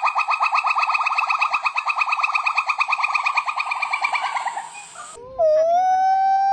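Primate call: a fast run of short rising notes, about ten a second, fading out about four and a half seconds in. After a brief pause comes one long, loud, high held note that sweeps up at its end.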